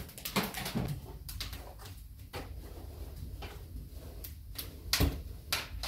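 Crinkling and rustling of a white disposable protective coverall as it is unpacked and shaken out, in many short irregular rustles, the strongest about five seconds in.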